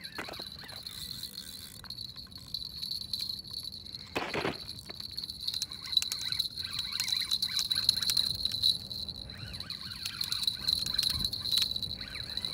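A steady, high-pitched insect trill, like a cricket chorus, with scattered light clicks and a brief rustle about four seconds in.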